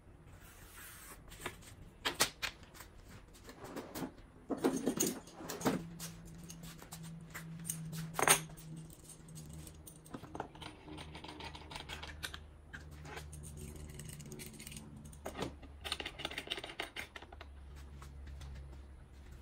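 Workbench handling noises: clicks and knocks of a metal ruler, pencil and steel C-clamp being moved and set down on a sheet of MDF, with a stretch of scraping about five seconds in and the sharpest knock about eight seconds in.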